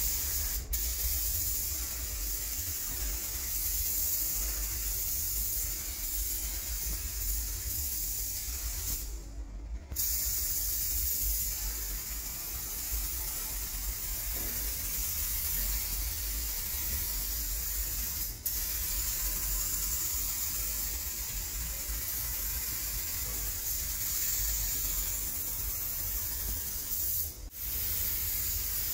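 Gravity-feed paint spray gun hissing steadily as it lays paint onto plastic bumper trim, with a short break about nine seconds in. A low steady rumble runs underneath.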